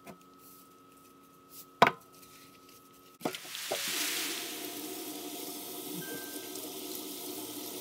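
A sharp knock, then, about three seconds in, a kitchen tap is turned on and water runs steadily into a stainless steel sink over a raw pig's head being rinsed of its salt rub.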